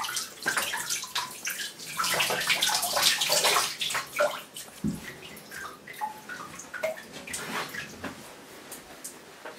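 Water splashing and dripping in a bathtub while a wet cat is handled during its bath. The splashing is heaviest a couple of seconds in, then thins to scattered drips and small knocks.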